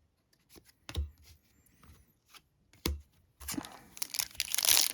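A few light taps and two soft knocks of cards being handled, then, about three and a half seconds in, a foil trading-card pack wrapper being torn open and crinkled.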